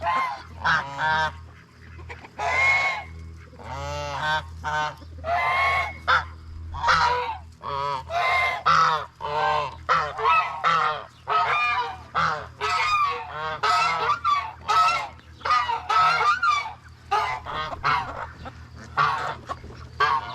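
Geese honking over and over, a string of short calls about one or two a second, with a steady low hum underneath.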